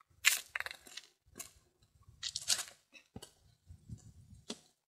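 Scattered crunching and rustling, like footsteps and brushing through dry grass and undergrowth, in a few short irregular bursts.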